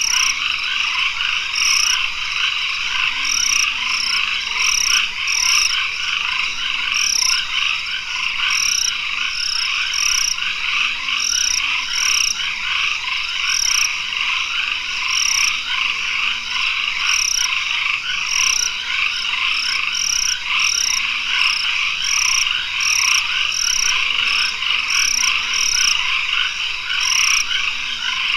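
Tropical forest dusk chorus of frogs: a dense, steady wall of calling, with short high peeps repeating irregularly about once or twice a second over it.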